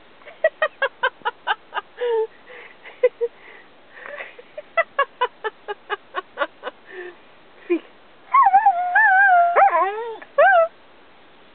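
Australian Cattle Dog 'talking' on command: two quick runs of short yips, about six a second, then near the end a long whining howl that wavers up and down in pitch.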